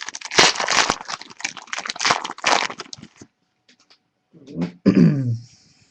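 A foil trading-card pack wrapper being torn open and crinkled, a dense crackling for about three seconds. About five seconds in comes a short voice-like sound that falls in pitch.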